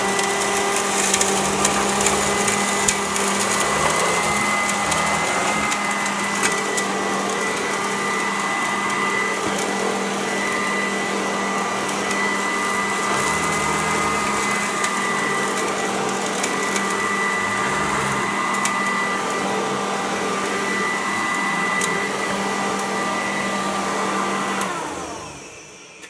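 Kent Euroclean upright vacuum cleaner running steadily over carpet as it picks up test dirt, its motor giving a steady whine. Near the end it is switched off and the motor winds down.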